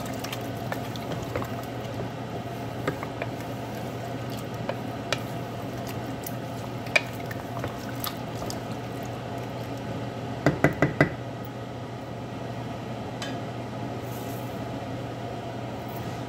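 Wooden spoon stirring chicken pieces and beans in water inside a stainless steel pot, with wet squelching and scattered small clicks and scrapes. About ten and a half seconds in come four quick, sharp knocks. A steady low hum runs underneath.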